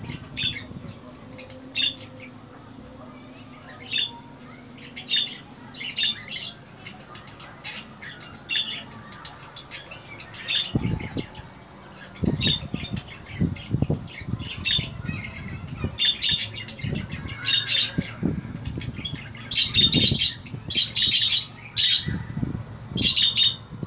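Caged budgerigars giving short, repeated chirps and squawks. From about halfway, low knocks and rumble join them.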